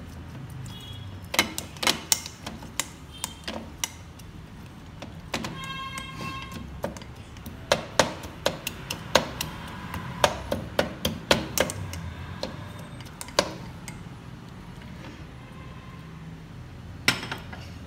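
Plastic muddler pressed down again and again into a glass tumbler, knocking and clicking against the glass as it crushes mint leaves and lime slices. The taps come at an uneven pace and are thickest from about eight to twelve seconds in. A brief pitched tone sounds about six seconds in.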